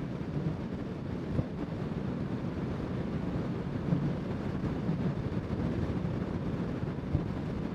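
Steady rush of wind over the microphone of a rider on a Honda CBR650R motorcycle at road speed, with the bike's running noise underneath and three brief gusts of buffeting.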